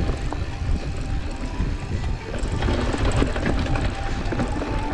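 Mountain bike riding over a bumpy grass trail: a steady rumble of wind buffeting the camera's microphone, mixed with tyre and frame rattle over the ground, a little busier from about halfway through.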